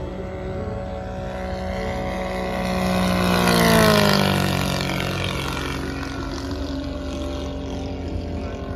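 Radio-controlled scale P-51 Mustang model with a three-cylinder inline engine making a pass. The engine drone swells to its loudest about four seconds in and drops in pitch as the plane goes by, then fades.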